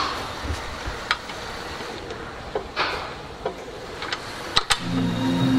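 Metal rigging hardware clicking and clinking as connecting plates and a ring-pull quick-release pin are fitted into a line-array speaker's flying frame: a handful of short, sharp clicks over a low hiss. Background music comes in near the end.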